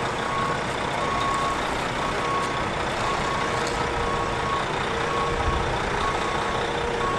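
A vehicle's backup alarm beeping about once a second over the steady noise of a running engine.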